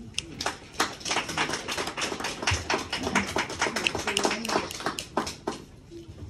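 A small audience clapping: quick, uneven claps that start right away and die away near the end.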